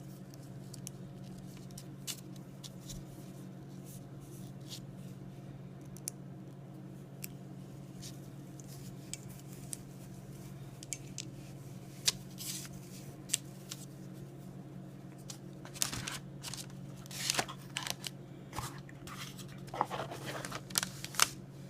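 A pocket knife and its gift box being handled as the knife is packed away: scattered light clicks, taps and short rustles, busier over the last ten seconds, over a steady low hum.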